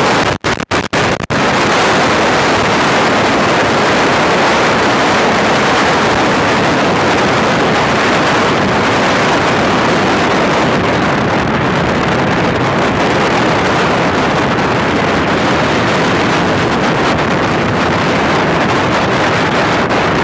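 Heavy wind rushing over the microphone of a Honda CBR600RR sportbike riding at road speed, steady and loud, with the bike's running noise blended in. The sound cuts out briefly several times about a second in.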